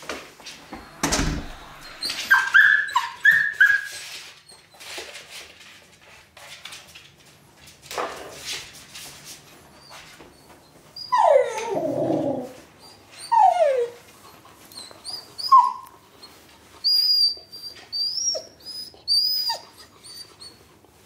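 Samoyed puppy whimpering and whining. A thump comes about a second in, then several falling cries around the middle, and a run of short high-pitched whines near the end.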